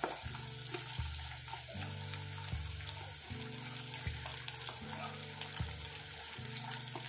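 Hot oil sizzling and crackling as batter-coated chicken drumettes deep-fry in a saucepan, with soft background music underneath.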